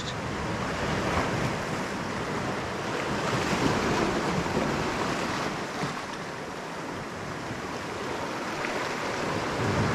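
Sea waves washing over rocks and pouring into a rock pool: a steady rushing wash that swells about three to four seconds in and eases off in the middle.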